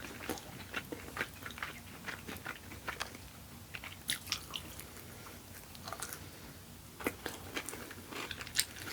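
Close-miked eating: a person biting and chewing food, with many small, irregular wet clicks and crunches.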